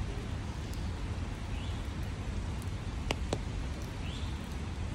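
Steady rain falling, with a low rumble underneath and two sharp taps about a quarter second apart roughly three seconds in.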